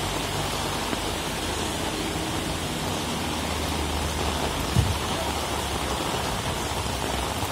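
Heavy rain falling steadily in a continuous hiss. A single dull thump about five seconds in.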